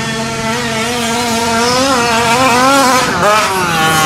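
Gas-powered RC truck engine running at high revs, its pitch holding and then wavering up and down as the throttle changes. The pitch pattern breaks and shifts about three seconds in.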